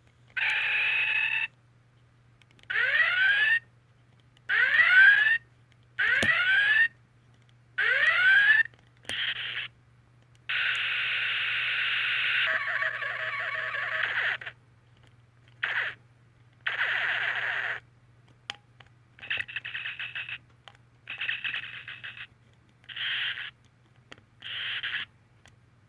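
A Star Trek sound-effects keychain plays a series of electronic sound effects through its tiny speaker, about a dozen in a row with short pauses between. The first several have sweeping pitch, one near the middle lasts about four seconds, and the last ones are short bursts.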